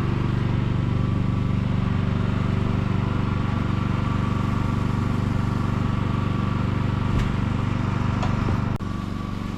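An engine running steadily at a constant speed, its level dropping suddenly near the end.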